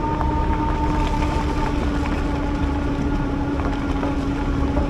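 Electric bike riding on beach sand: a steady, even-pitched motor whine over wind rumble and tyre noise, with a few light ticks.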